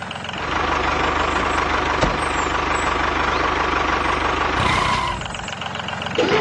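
A vehicle engine idling steadily with an even low pulsing, starting about half a second in and dying away near the end, with a single click about two seconds in.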